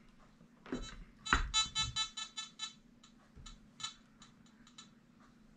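Nokta Makro Simplex+ metal detector beeping: a quick run of short electronic tones about a second in, then scattered single beeps. A couple of dull knocks from the detector being handled come near the start.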